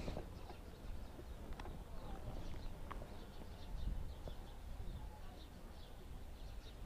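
Faint, scattered chirps of small birds over a steady low background rumble, with a few soft clicks.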